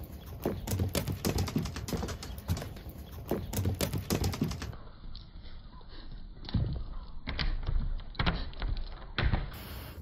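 Quick, uneven footsteps crunching on dry grass and fallen leaves, then a few louder separate thuds about halfway through as the sound turns duller.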